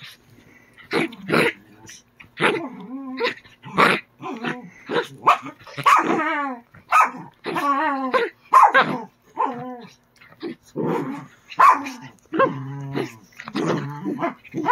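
Small dog growling and barking in play, in many short bursts, some with a wavering pitch.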